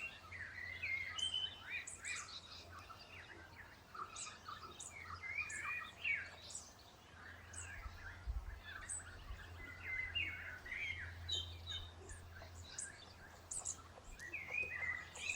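Birds chirping: many short, overlapping chirps and calls with a steady low hum underneath.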